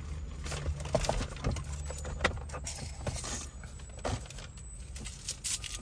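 Scattered light clicks and rattles of things being handled inside a car, over a low steady hum in the cabin.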